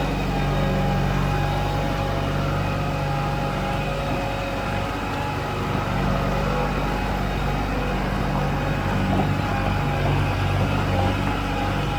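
JCB 3DX backhoe loader's diesel engine running steadily, a low engine drone with a steady higher whine above it.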